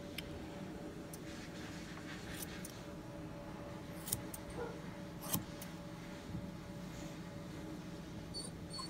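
Grooming scissors snipping a Lhasa Apso puppy's coat: a few isolated sharp snips, the loudest about five seconds in, over a steady faint hum.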